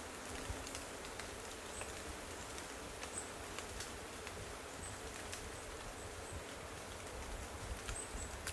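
Open-field ambience: a steady hiss with wind rumbling on the microphone, faint short high chirps every second or so, and a few small clicks.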